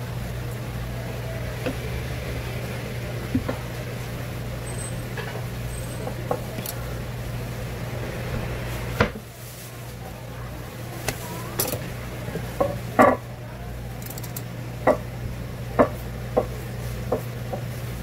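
Knife work on a cutting board while fish is sliced for sashimi: scattered sharp knocks and clicks, most of them in the second half, over a steady low hum.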